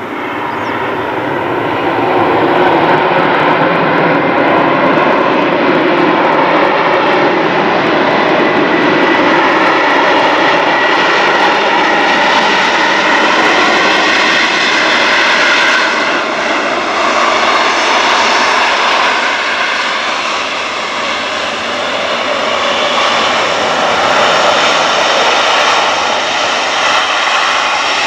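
Jet engines of a Boeing 737-800 airliner running as it moves along the ground close by: a loud, steady roar with a whine. It grows over the first couple of seconds as the aircraft comes near, then holds.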